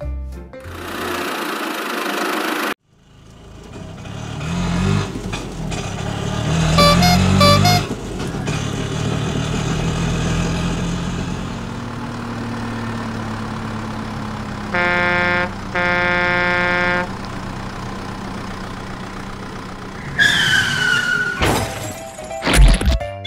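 Cartoon vehicle sound effects: an engine running steadily, with a horn honking twice about two-thirds of the way through and a falling whistle near the end.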